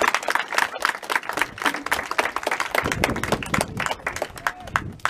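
A small group of people clapping their hands in quick, irregular claps, applauding a shot at goal in an amateur football match. The clapping stops near the end.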